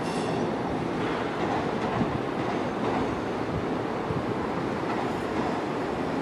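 EWS Class 67 diesel locomotive hauling Pullman coaches slowly over pointwork: a steady rumble of engine and wheels, with an occasional knock.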